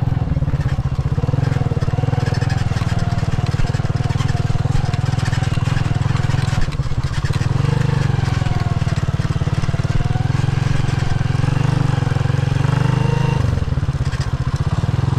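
Honda motorcycle engine running steadily at low road speed, heard from the rider's seat, with a brief change in the engine note about thirteen seconds in.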